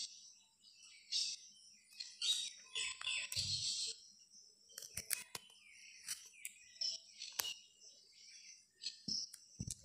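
Hot oil sizzling and crackling around pitha dumplings deep-frying in a karai, in uneven spells of high crackle. A metal spatula clicks and scrapes against the pan several times as it turns them.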